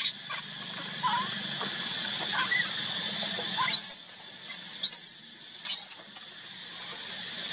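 Baby macaque crying: a few soft whimpers, then about four seconds in, three shrill, very high screams in quick succession, over a steady high drone.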